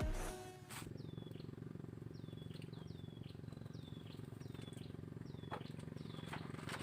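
A bird calling over and over, about nine short, high whistled notes that each drop sharply in pitch, over a steady low hum. A few faint clicks come near the end.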